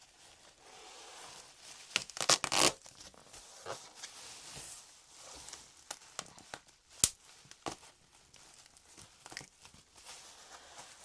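Packaging being opened by hand: crinkling and tearing. A burst of loud tearing comes about two seconds in, and sharp clicks and taps follow around the middle.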